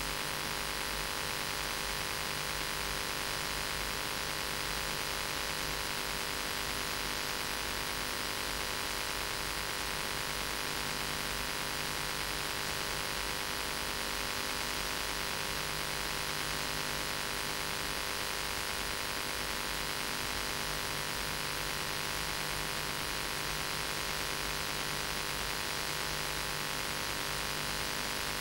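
Steady hiss with electrical mains hum and no other sound: the noise floor of an old videotape recording with no program sound.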